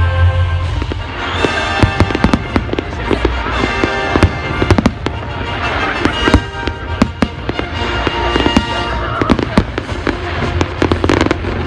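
Fireworks display: a dense, irregular run of sharp bangs and crackles, several a second, over steady background music.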